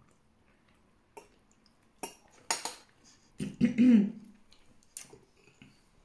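Eating by hand from a plate: small clicks and scrapes of fingers and food on the plate. A short, pitched vocal sound a little past halfway is the loudest thing.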